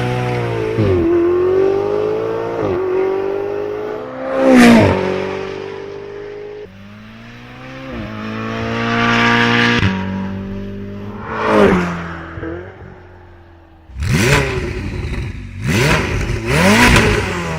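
Sports-car engine revving and accelerating several times, its pitch climbing and dropping again. The loudest peaks come about four and a half and eleven and a half seconds in, with a quick run of rev blips near the end.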